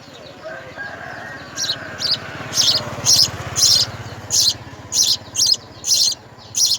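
Small bird chirping repeatedly in short, sharp, high chirps, about two a second, louder and more frequent after the first couple of seconds. A fainter, longer, lower call sounds underneath in the first half.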